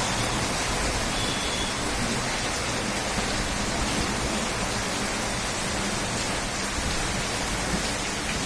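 Steady rain pouring down, an even hiss with no breaks.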